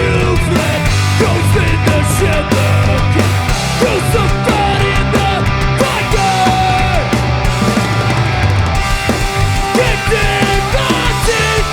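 Hardcore punk band playing loud and steady through the whole stretch, with distorted rock guitars, bass and drums.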